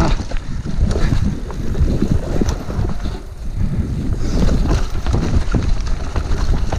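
Mountain bike descending a dirt forest trail at speed: wind buffeting the camera microphone over the rumble of tyres on dirt, with frequent clattering knocks from the bike as it goes over the rough ground, easing briefly about three seconds in.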